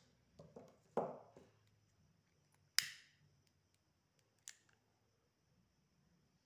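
Scissors set down on a table with a few soft knocks about a second in. A disposable lighter is then struck once, a sharp click with a brief hiss near the three-second mark, followed by a smaller click about a second and a half later. The lighter is lit to melt the cut ends of the nylon cord so they fuse.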